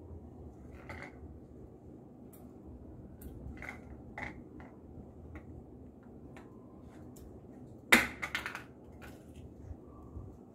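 Scattered light clicks and taps from small objects being handled, with one louder sharp knock about eight seconds in.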